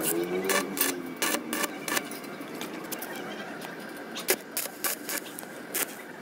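Stick-welding arc crackling and popping irregularly as an electrode welds the base of a stainless steel square railing post.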